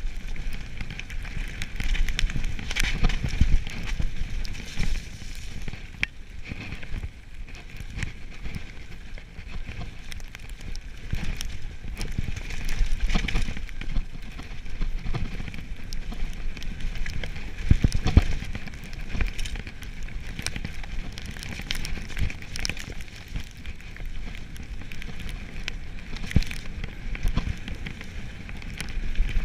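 Mountain bike riding fast down a gravel forest trail: steady crackle of tyres rolling over wet grit, with frequent clicks and rattles from the bike over bumps and low wind rumble on the camera's microphone.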